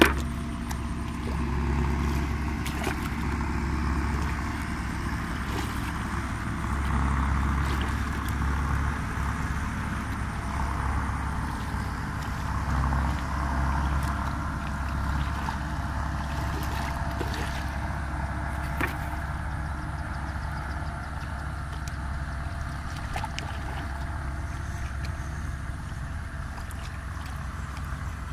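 A steady low engine-like drone, with light splashing and squelching of hands and feet in shallow muddy water.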